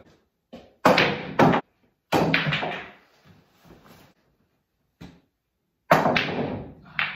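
Pool cue and billiard balls on a pool table: about half a dozen sharp clacks and knocks, several trailing off in a short rumble as the balls roll and drop.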